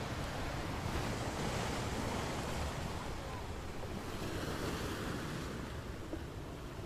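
Ocean surf breaking and washing up the sand, a steady rushing wash, with wind noise on the microphone.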